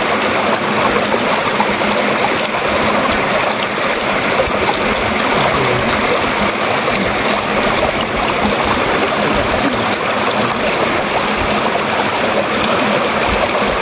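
Small mountain stream rushing over a low rocky cascade into a pool, a steady, loud water noise.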